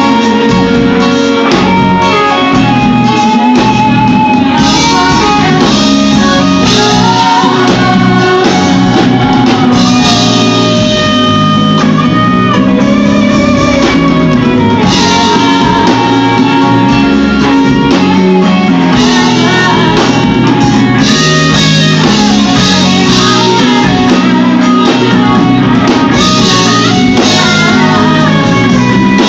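Live R&B band playing a song with female singing over electric guitar, bass guitar, drums and keyboard, loud throughout.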